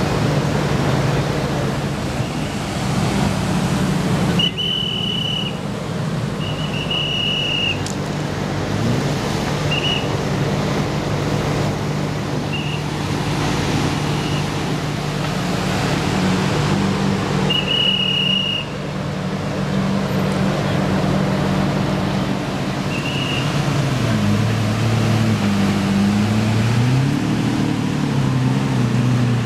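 Lamborghini supercar engines running at idle and low speed, a steady low drone. From about 24 s to 28 s one engine rises and falls in pitch as it is revved. A few short high-pitched tones come and go over the first two-thirds.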